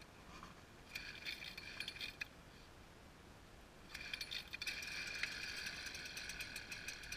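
Small engine of a gas-powered ice auger being pull-started: a short rattling burst about a second in that dies away, then it catches about four seconds in and keeps running with a fast, rattling ticking.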